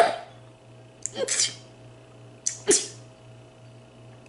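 A person in a rapid sneezing fit: three sharp sneezes in quick succession, about a second and a quarter apart, the first right at the start.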